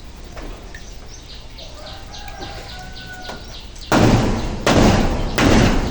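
Birds chirping faintly, then from about four seconds in, a run of loud heavy thuds, about three-quarters of a second apart.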